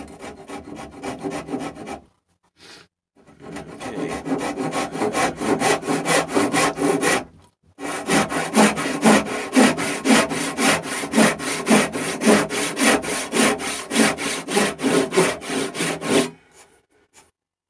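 A fine-toothed dovetail backsaw (18 points per inch) cutting birch with quick, even back-and-forth strokes along a dovetail tail. The sawing comes in three runs, with short pauses about two and seven seconds in, and stops about sixteen seconds in.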